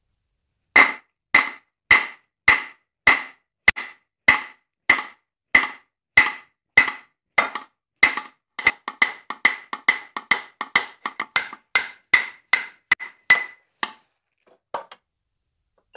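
Steel hammer blows on a seized crankshaft in a Copeland semi-hermetic compressor, struck to free it and drive it out. Each blow lands with a sharp metallic ring: a steady beat of roughly two blows every second and a bit, quickening after about 8 s, then stopping about 14 s in.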